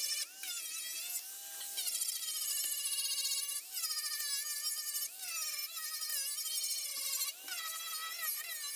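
High-speed electric grinder whining as it works body filler out of a car's steel front panel. Its pitch sags and recovers every second or two as the disc is pressed into the work.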